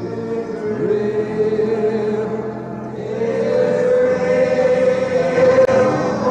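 A congregation singing together in long held notes that slowly shift in pitch, many voices blending with no clear words; the singing swells louder about halfway through.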